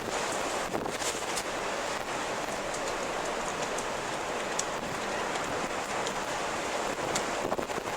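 Steady rushing wind, an even stormy hiss with a few faint ticks and crackles through it.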